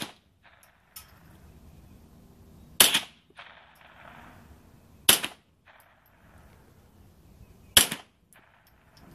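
Remington 597 semi-automatic .22 LR rifle firing single shots, one right at the start and three more about two and a half seconds apart.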